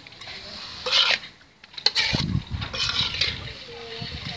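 Metal spatula scraping and tossing bean sprouts in an aluminium wok during stir-frying. There is a short scrape about a second in and more scraping from about two seconds in, over a low rumble.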